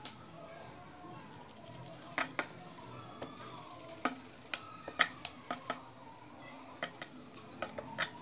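Scattered light clicks and taps, about a dozen, from hands working a clear plastic sheet over a roll of modelling clay on a tabletop.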